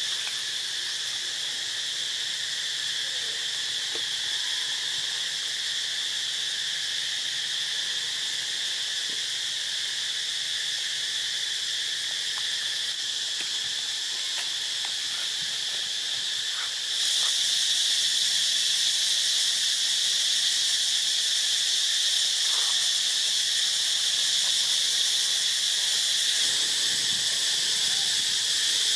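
Steady, high-pitched drone of insects in the trees, which gets abruptly louder a little past halfway.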